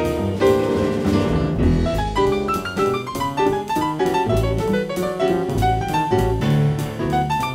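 Jazz trio playing: upright double bass plucked, with piano and drums.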